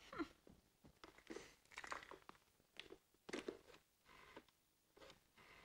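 Faint, irregular clicks and rustles of a push-button telephone being dialled, its keys pressed and the handset handled.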